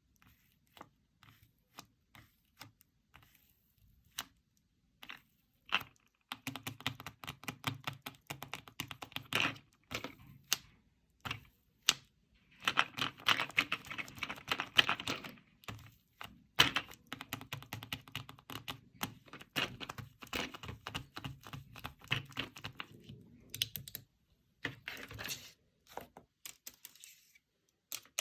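Fingers tapping and clicking on a handmade paper fidget board. The taps are sparse at first, turn into fast dense runs about six seconds in, and thin out again near the end.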